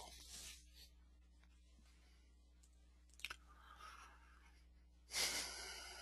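Near silence with a faint steady low hum. A single small click comes about three seconds in, and a breath-like rustle rises near the end.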